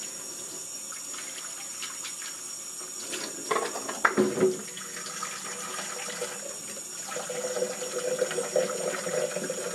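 Kitchen tap running into the sink, with a few knocks and clatters about four seconds in.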